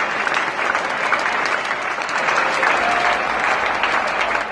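Large cricket crowd applauding steadily and warmly, a standing ovation for a batsman walking off after his final innings.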